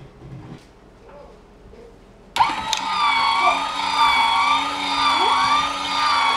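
Small electric gear motor of an automatic chicken coop door switching on suddenly with a click about two and a half seconds in. It runs with a steady, gently wavering whine as it winds the cord to raise the door.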